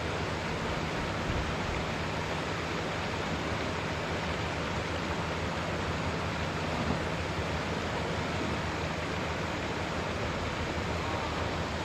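Steady outdoor rushing noise, like wind or churning water, with a low hum underneath.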